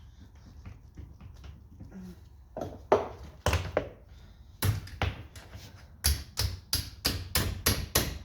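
Hammer blows, likely seating a driver bit in a stuck fastener head: a few separate strikes, then a quick run of blows about three a second near the end.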